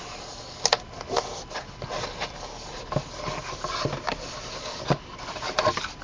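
Heavy paper being wrapped around a chipboard box and rubbed down by hand: soft rubbing and rustling with scattered light taps and crackles, the sharpest tap near the start.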